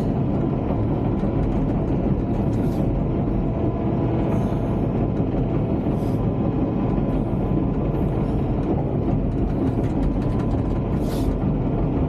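Bulldozer's diesel engine and steel tracks running steadily as the dozer travels, heard from inside the cab, with a few brief high squeaks about three, six and eleven seconds in.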